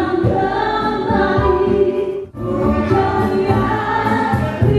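A group of men and women singing together into microphones, with live band accompaniment. The sound drops out for an instant about halfway through.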